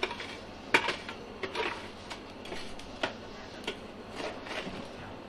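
Metal scoop digging into burning lump charcoal in a metal bucket: a run of irregular sharp clinks and scrapes of charcoal against metal, the loudest about a second in.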